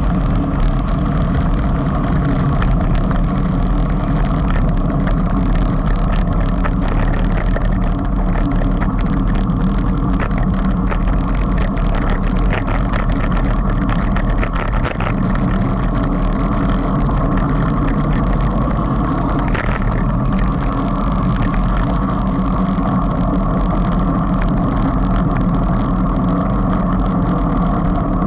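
Steady wind rumble on a bicycle-mounted action camera's microphone, mixed with tyre and road noise, while riding at about 16 to 26 km/h.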